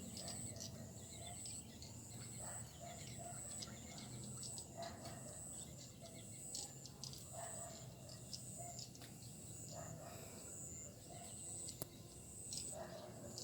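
A flock of swiftlets and sparrows chirping and twittering over and over, many short high calls overlapping, with a thin, shrill note that keeps coming back.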